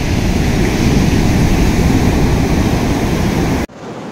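Sea surf breaking and washing up a sandy beach, mixed with heavy wind rumble on the microphone. It cuts off abruptly near the end.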